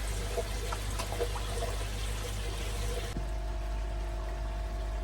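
Water trickling and splashing around a koi pond filter over a steady low hum. About three seconds in, the splashing cuts off suddenly, leaving a steady mechanical hum with a constant tone.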